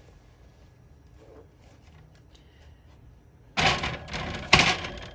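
A metal casting mold knocked twice against a metal sheet pan to turn out freshly poured silver arrowheads. There is a loud clatter about three and a half seconds in, then a sharper knock a second later.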